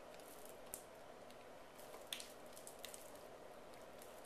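Thick doughnut batter being poured and scraped into a plastic zip-top bag: faint soft squishes with a few small clicks, over quiet room tone.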